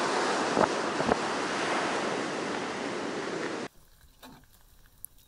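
Wind buffeting the microphone over surf breaking on an ocean beach, with a couple of stronger gusts early. It cuts off suddenly about three and a half seconds in.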